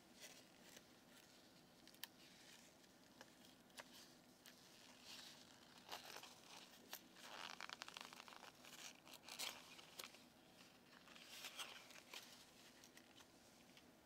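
Faint crinkling and tearing of a plastic blister pack as its paper lid is peeled off to free a dental implant, with a few light clicks of the plastic tray. The rustling comes in short bursts through the middle.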